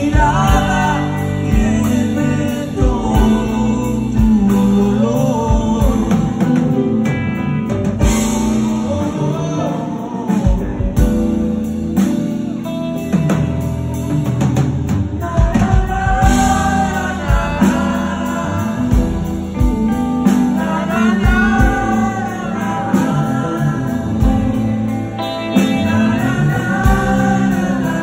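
Live rock band playing, led by an electric guitar solo full of bent notes that rise and fall, over bass and drums.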